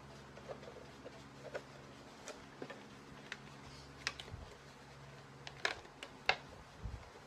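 Scattered light clicks and crackles of a thin plastic milk jug being handled while strips of masking tape are pressed along its seam, over a faint steady hum.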